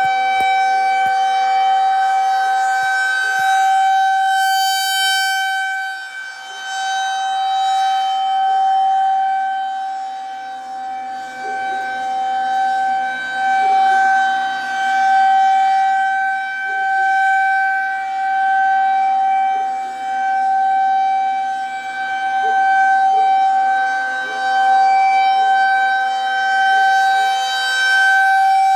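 Outdoor tornado warning siren sounding a steady, single-pitch alert tone for a scheduled test. Its loudness swells and fades every two to three seconds as the rotating siren head turns.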